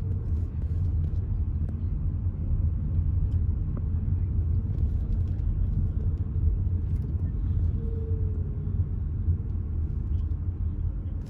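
Car driving slowly, with a steady low rumble of engine and road noise.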